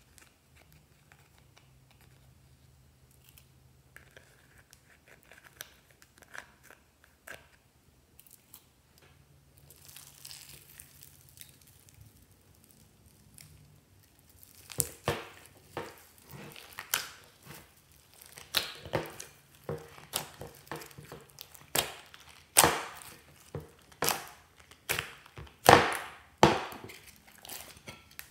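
Glossy slime being stirred and folded with a plastic stick in a glass dish, giving sticky crackling pops about one to two a second that start about halfway through and grow louder. Before that only faint light scratching as glitter is brushed into the dish.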